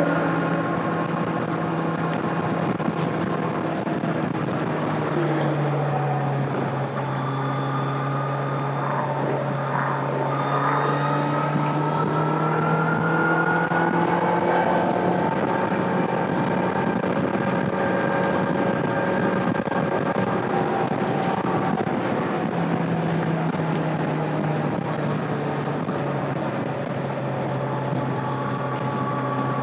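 Stock-exhaust 2025 Kawasaki Z900's 948 cc inline-four engine running at steady highway revs under riding wind noise. Its note drops about five seconds in and climbs back a little after twenty seconds.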